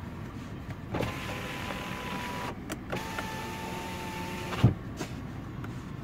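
Peugeot 2008's electric window motor whining twice, each run about a second and a half long, the second ending in a thud as the glass reaches its stop.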